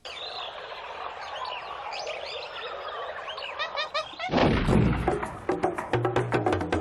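Jungle soundscape of many birds chirping and calling, then a little over four seconds in, loud drum-driven music comes in with rapid percussive beats.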